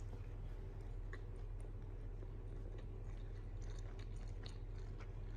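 Someone eating: faint chewing and small scattered clicks over a steady low hum.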